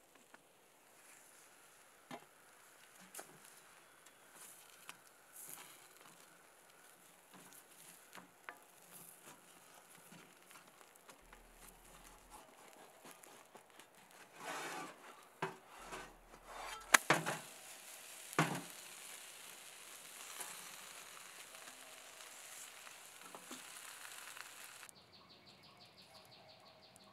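Food sizzling in a cast iron skillet on a small wood stove: a steady frying hiss with scattered light ticks. From about 14 to 19 seconds in come louder metal knocks and scrapes as the food is lifted from the pan, and the sizzle stops abruptly near the end.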